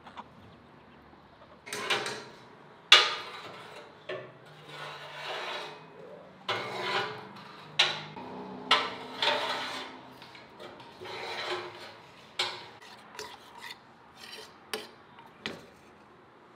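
Firewood knocking and scraping in the firebox of a steel wood-burning stove as pieces are pushed in and arranged: a run of sharp knocks with rasping scrapes between them, about a dozen in all.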